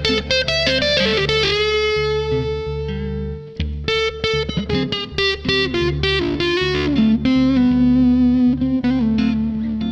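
Electric guitar played through a fuzz pedal: quick picked single-note lines with held, bent notes, a short break about three and a half seconds in, then more notes ending on a long sustained one.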